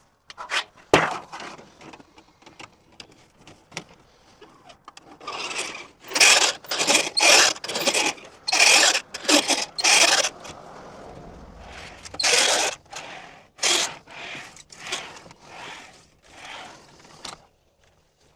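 Hand edge roller being worked along the edge of an aluminum sheet to bend up a flange for a door sill pan: a few clicks, then a long series of short metallic scraping strokes, about two a second.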